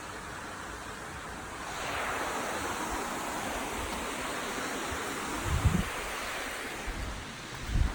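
Steady rushing of a waterfall, growing louder about two seconds in, with wind buffeting the microphone in low thumps about two-thirds of the way through and again at the end.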